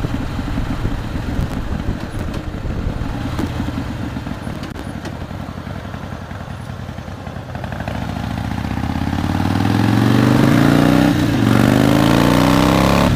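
2005 Harley-Davidson Softail CVO Fat Boy's V-twin engine, heard from the bike while riding. It runs low and quieter for several seconds, then from about eight seconds in it revs up and grows much louder, dropping briefly around eleven seconds at a gear change before climbing again.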